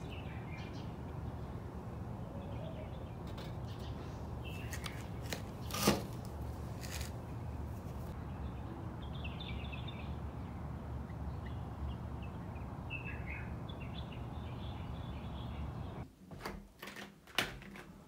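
Outdoor ambience: a steady low hum with small birds chirping now and then. About six seconds in there is one sharp click. Near the end the hum drops away, followed by a few sharp knocks.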